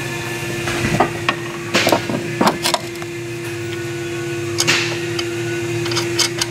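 Scattered sharp metallic clinks and knocks from hand tools and strut-mount hardware as the mounting nuts come off, over a steady hum.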